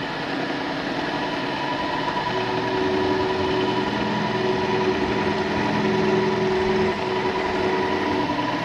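Milling machine running steadily, its end mill taking a light cut on the end of a steel Model T driveshaft. A lower hum comes in about two seconds in and stops near the end.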